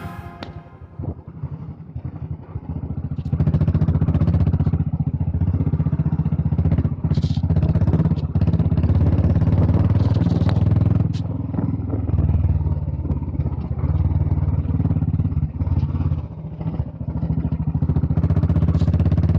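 Royal Enfield Bullet single-cylinder motorcycle engine running under load while riding off-road, with clatter. It is quieter for the first three seconds, then steady and loud, easing off briefly twice.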